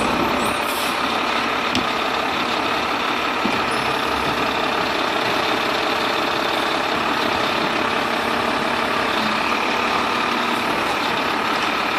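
Mack LR automated side-loading garbage truck running steadily at the curb, its diesel engine and hydraulics working the arm as it lifts, empties and sets down a cart.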